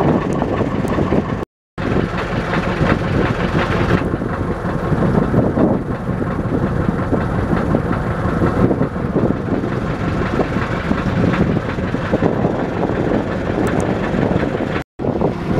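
Small motor launch under way, its engine running steadily in a dense, even noise. The sound cuts out for a moment twice, about a second and a half in and near the end.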